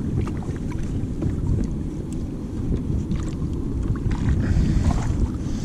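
Wind rumbling on the microphone, with scattered small clicks and light water lapping around the kayak.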